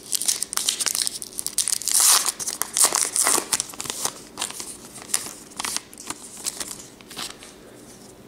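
Wrapper of a 2018 Topps Gypsy Queen baseball card pack being torn open and pulled off the cards, a dense run of crinkling and tearing that thins out after about four seconds into scattered crackles as the cards are handled.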